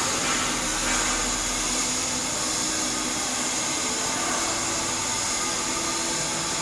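Stick-welding arc from an E7018 electrode laying a cap pass, a steady hiss at an even level.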